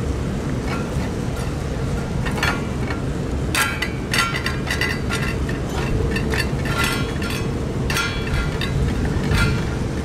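Cats eating wet food from stainless steel dishes, the metal dishes clinking and ringing in clusters of quick clicks as they lick and bite, starting about a third of the way in. Steady wind rumble on the microphone runs beneath.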